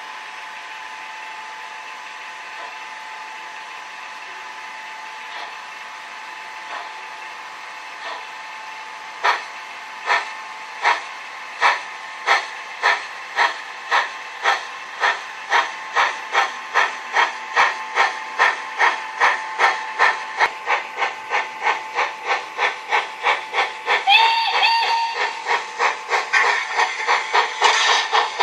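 HO-scale model steam locomotive's sound effects: a steady steam hiss at standstill, then chuffing that starts about nine seconds in and speeds up to about three chuffs a second as it gets under way. A short whistle blast sounds near the end over the chuffing.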